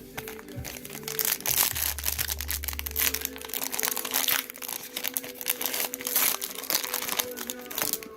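Foil trading-card pack wrapper being torn open and crinkled: a dense run of crackling that starts about a second in and stops just before the end, over faint background music.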